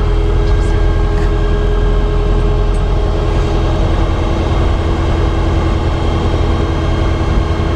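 Diamond DA40 light aircraft's piston engine and propeller running at a steady low speed, a constant heavy rumble with a few steady tones over it, as heard from inside the cabin.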